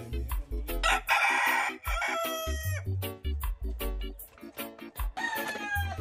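A rooster crowing twice, a long crow about a second in and a shorter one near the end, over background music with a steady beat.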